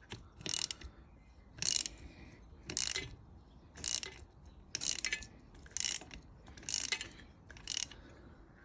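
Ratchet wrench clicking in eight short bursts, about one a second, as it is worked back and forth on two nuts locked together on a seized exhaust manifold stud, trying to unscrew the stud.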